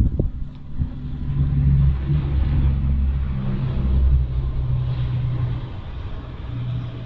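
A motor vehicle's engine running with a low, steady hum, growing louder over the first two seconds and fading away over the last few.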